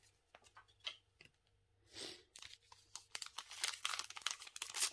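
A few soft taps and a swish as trading cards are handled, then from about three seconds in the crinkling and tearing of a Topps Match Attax card pack's crimped wrapper being ripped open.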